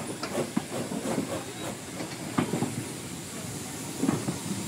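Wooden goods wagons and a brake van rolling slowly past on the rails, with irregular clanks and knocks from the running gear, the sharpest about two and a half seconds in and near the end, over a steady hiss of steam.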